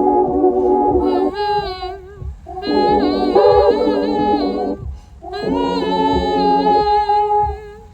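Music: wordless sung or hummed vocal phrases, with long held notes that waver in pitch, in three phrases over a steady low beat.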